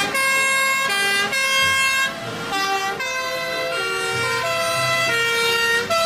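Two-tone sirens of a convoy of fire engines, the Austrian and German style of siren that alternates between a high and a low note. More than one siren sounds at once, out of step with each other.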